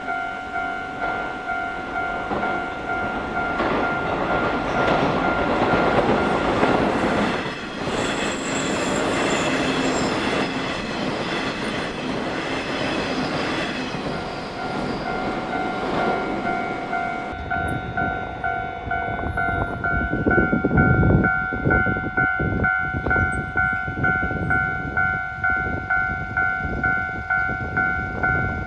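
Japanese level-crossing warning bell ringing in a fast, even ding-ding while Nishitetsu electric trains pass over the crossing. A train rushes past through the first half, and from about twenty seconds in another train's wheels clack rhythmically over the rail joints.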